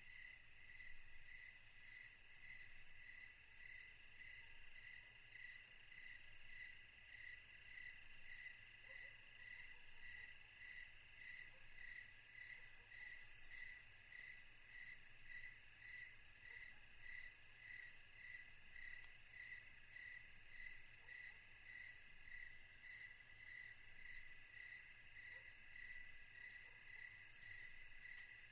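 Faint, steady insect chorus like crickets: a high note pulsing evenly over a thin hiss, with now and then a brief higher chirp.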